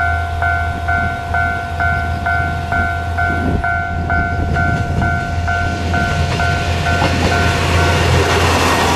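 KiHa 2100 diesel railcar set running in and passing close, its engine and running noise growing louder toward the end. A warning bell dings about twice a second through most of it and stops shortly before the train goes by.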